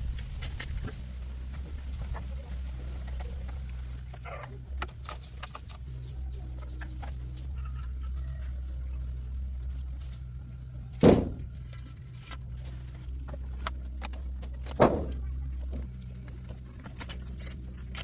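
Car engine idling steadily, with scattered light metallic clinks and two loud sharp knocks, one about eleven seconds in and one about four seconds later.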